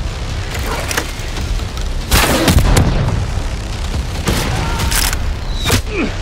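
Booming shot and impact sounds as a Nerf Ka-Boom Bow is drawn and fired. There are several sharp hits, the loudest about two seconds in, over a steady low rumble.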